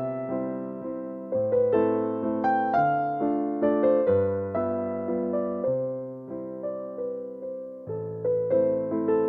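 Background music: a piano or electric piano melody over chords.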